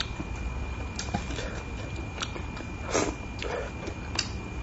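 Close-miked eating sounds: wet mouth smacks and chewing as braised fish is eaten from chopsticks. There are a handful of short, sharp smacks and clicks, the loudest about three seconds in.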